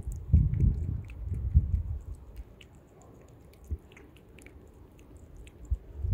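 A kitten chewing wet cat food chunks close up, with small wet clicks and smacks. The chewing is loudest in the first two seconds, then goes on more faintly.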